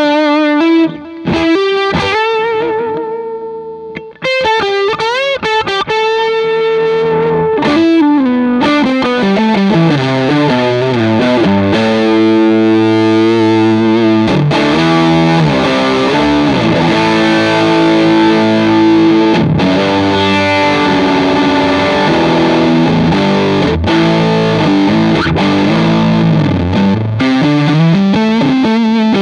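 Telecaster electric guitar through a British-style overdrive pedal (D-Sound Fisherman) into a Vox AC30 amp, with a little delay. It plays a few single-note lines with bends and vibrato, then strummed distorted chords left ringing from about eight seconds in.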